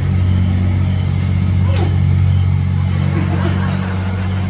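Steady low hum of a running motor, with a few faint short falling squeaks around the middle.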